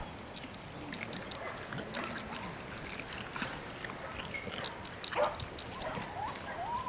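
Dogs eating raw chicken on bones, with scattered small crunching clicks as they chew, and one louder short sound about five seconds in.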